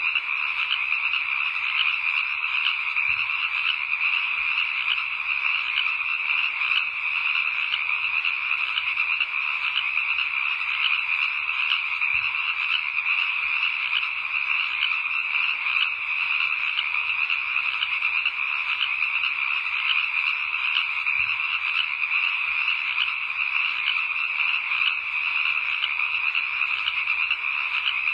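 A steady chorus of frogs calling at night: dense, fast overlapping trills that go on without a break.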